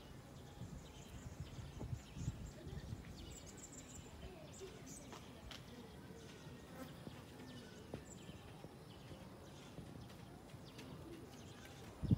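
Faint background noise: an irregular low rumble, a little stronger in the first few seconds, with a few brief high chirps and soft clicks.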